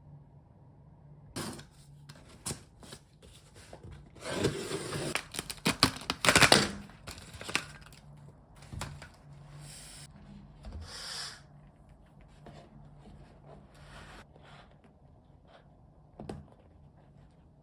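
Objects being handled: scattered clicks and knocks, with a louder stretch of rustling and scraping about four to seven seconds in, over a faint steady hum.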